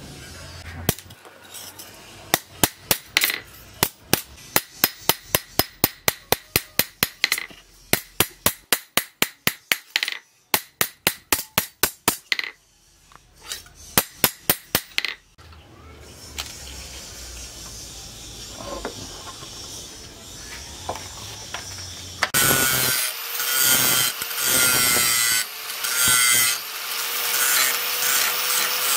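Hand hammer striking a steel knife blade on a small anvil in a rapid, even series of blows, about two to three a second, for roughly the first half. After a quieter stretch, an angle grinder starts about two-thirds of the way in and runs steadily, grinding the steel blade with a whining hiss.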